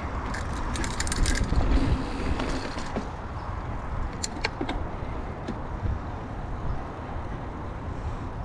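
Mountain bike ridden along a dirt trail: a steady rush of wind and tyre noise with a low rumble, and scattered clicks and rattles from the bike, busiest between one and two seconds in.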